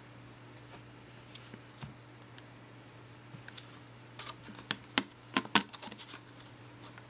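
Plastic clicks and taps as two DDR3 memory modules are handled and pressed into a clear plastic blister tray: a few light clicks, then a quick run of louder clicks about four to six seconds in.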